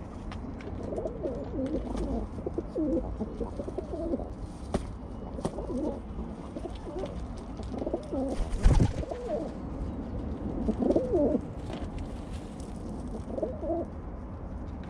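Feral rock pigeons cooing over and over, in short low throaty phrases every second or two. About nine seconds in there is one sudden loud flutter of wings.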